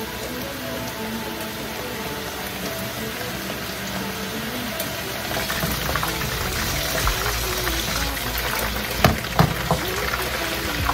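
Hot oil sizzling as tempura-battered shrimp deep-fry in a pan, with vegetables stir-frying in a wok; the sizzle grows louder about halfway through. A few sharp knocks near the end as a wooden spatula stirs the wok.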